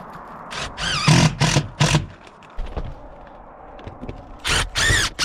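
Drill driving rubber-washered roofing screws into metal roof panels. The motor whines up in two runs, one about a second in and one near the end.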